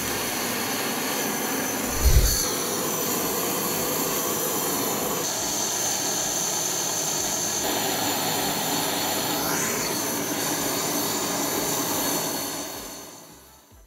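Butane torch burning: a steady rushing hiss of the gas flame, with one low thump about two seconds in. The hiss fades out near the end.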